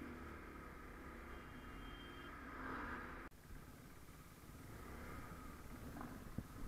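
Motorcycle engine and road rumble, faint and muffled, with a brief break about three seconds in where the sound cuts.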